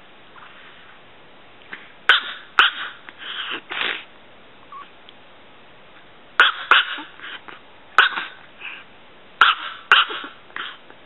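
A tiny chihuahua of under three pounds barking in short, sharp yaps, in quick runs of two to four, starting about two seconds in and again from about six seconds on.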